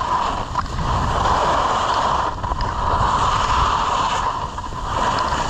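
Skis hissing and scraping over groomed snow while skiing downhill, swelling and easing every couple of seconds, with wind rumbling on the microphone.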